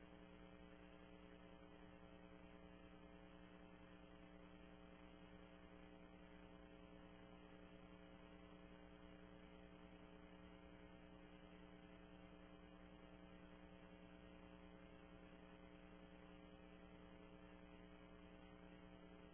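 Near silence with a faint, steady electrical hum; no sound of the lift or the barbell is heard.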